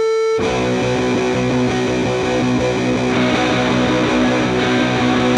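Live rock band opening a song: a single held tone, then loud electric guitar comes in about half a second in with sustained, ringing chords. No drums play yet.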